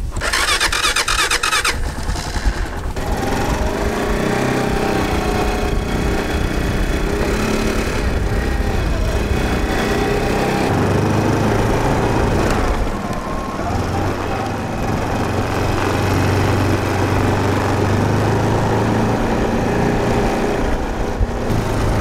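Honda ATV's electric starter whirs for about a second and a half, then the engine catches and runs. Its pitch rises and falls as the four-wheeler is ridden.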